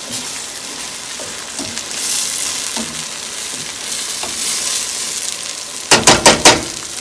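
Sliced red onions sizzling in a vinegar sauce in a stainless steel skillet, stirred with metal tongs; the hiss swells twice. Near the end come four quick, loud metallic clacks as the tongs knock against the pan.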